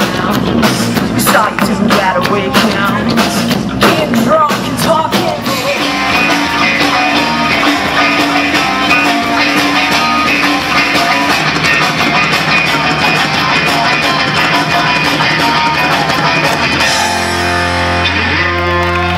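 Live rock band on amplified electric guitars and drum kit playing loud; about five and a half seconds in the drum hits stop and the guitars ring on in long held notes, a deep low note joining near the end, as the song draws to its close.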